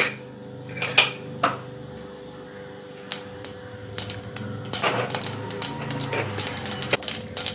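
Mustard seeds popping and crackling in hot coconut oil in a pan. A few scattered pops at first thicken into a rapid crackle from about halfway through. In tempering, this popping is the sign that the seeds are done and the next ingredients can go in.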